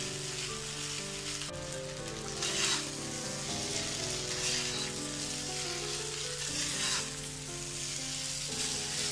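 Egg noodles sizzling in a wok over a high gas flame while a metal spatula tosses and stirs them, with louder scraping strokes now and then.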